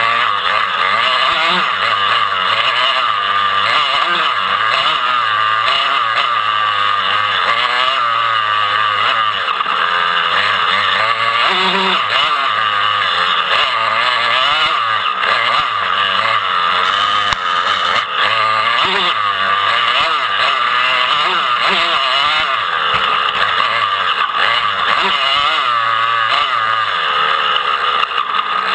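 Dirt bike engines revving hard and continuously, the pitch rising and falling over and over with the throttle.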